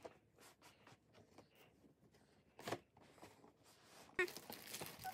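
Small fingers scratching and picking at the sealed lid of a cardboard toy box, as a child tries to open it: scattered faint scrapes and taps, with louder rustling about four seconds in.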